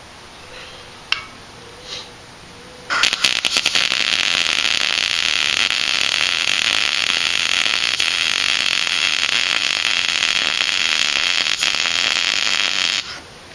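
MIG welder arc crackling steadily for about ten seconds while a weld bead is laid, starting about three seconds in with a few sputtering pops and cutting off abruptly near the end. A sharp click comes before it.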